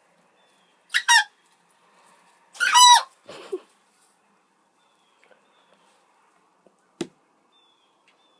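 A chicken giving short, high-pitched squeaky calls that sound like hiccups: two quick ones about a second in, then a longer, louder one near three seconds. A single short knock comes about seven seconds in.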